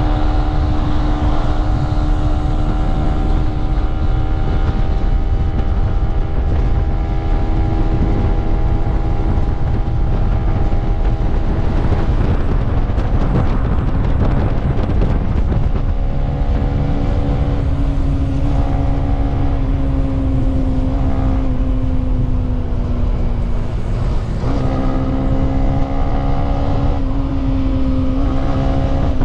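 Yamaha single-cylinder motorcycle engine cruising at highway speed, a steady droning note with wind rumble on the microphone. The note wavers about twelve seconds in, settles a little lower, then steps up again about twenty-four seconds in, as with a throttle or gear change.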